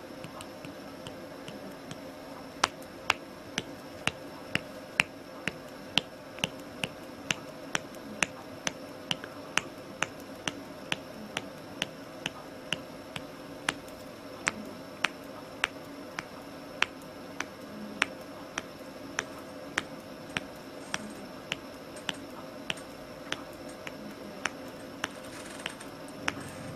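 Finger joints cracked over and over, a sharp pop about twice a second starting a few seconds in, over a steady background hum.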